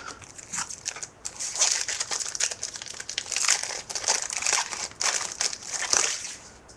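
Foil trading-card pack wrapper crinkling and crackling as it is handled and opened, in irregular rustling bursts for several seconds.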